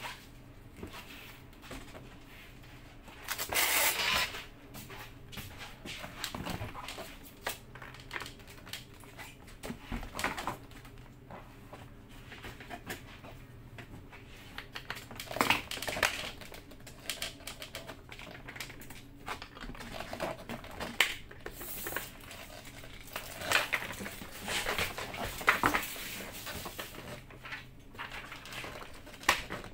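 Handling noises from a KYT motorcycle racing helmet and its visor: irregular small plastic clicks, taps and rustles, with louder rustling scrapes about four seconds in and again in the second half.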